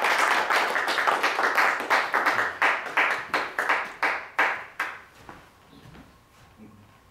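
Applause from a small audience, dense at first, then thinning to separate claps and dying away about five seconds in.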